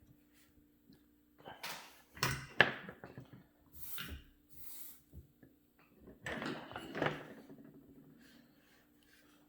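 Handling of tools and wire on a workbench: a few knocks and clicks, two short scraping hisses about four seconds in, and a longer rattle around six to seven seconds, over a faint steady hum.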